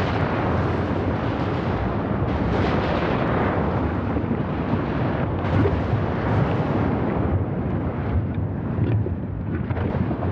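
Mt. Yasur volcano erupting explosively: a continuous deep rumble of lava bursting from the vent, broken by several sharper blasts as lava bombs are thrown out. Strong wind buffets the microphone.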